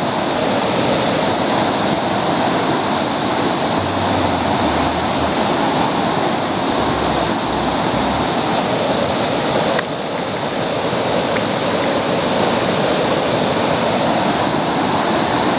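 Steady loud rush of river water coming down at a spillway, an even wash of noise throughout. There is a brief dip a little before the ten-second mark.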